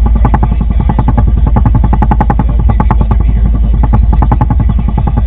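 An engine running steadily, with a deep rumble and a fast, even pulsing.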